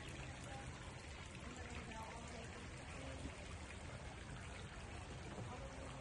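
Garden pond fountain splashing steadily, its spray falling back onto the water.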